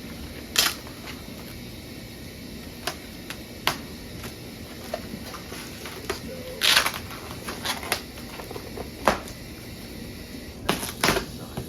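Scattered knocks, taps and a short scrape of cardboard boxes and packaged parts being handled and opened.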